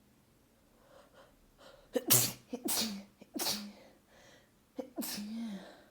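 A person sneezing four times in rapid succession: faint catching in-breaths, then three sneezes close together about two seconds in, and a fourth near the end. It is a sneezing fit that the sneezer puts down to either the cold weather or a new cold.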